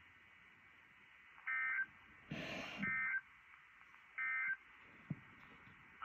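NOAA Weather Radio SAME end-of-message signal: three short, buzzy digital data bursts, evenly spaced about a second apart, marking the end of the alert. Between the first two bursts there is a brief burst of static.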